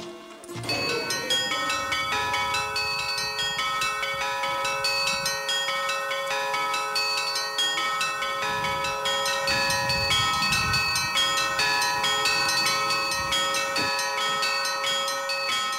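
Church bells ringing: several bells of different pitches struck in quick succession, their tones ringing on and overlapping between strokes, in the style of Russian church bell ringing.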